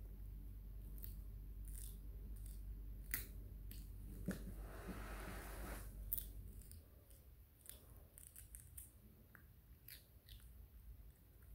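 A baby macaque biting and chewing a raw cucumber: scattered crisp crunching clicks, with a longer noisy stretch of munching about four to six seconds in.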